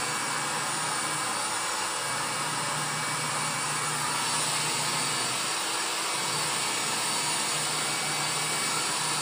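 Small handheld hair dryer running steadily, a constant rush of blown air with a faint low motor hum.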